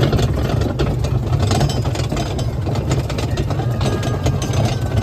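The engine of a farm barrel ride running steadily, with rattling and knocking from the barrels going over a bumpy track.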